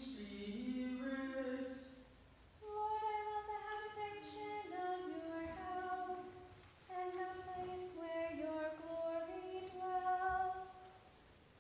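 Unaccompanied singing voice holding steady notes of a slow hymn-like melody, in three phrases with short breaks about two and seven seconds in.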